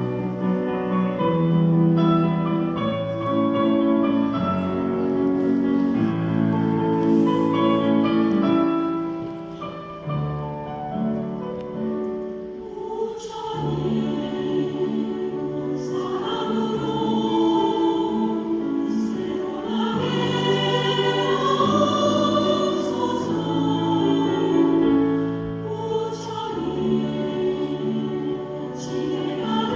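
Choir singing a Buddhist hymn in sustained chords, coming in loudly at the start after a quiet passage.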